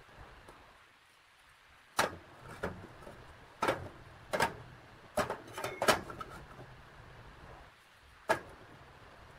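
Galvanized steel square tubes knocking and clinking on a steel workbench as they are picked up, slid and set down: a run of sharp knocks about two to six seconds in, and one more near the end.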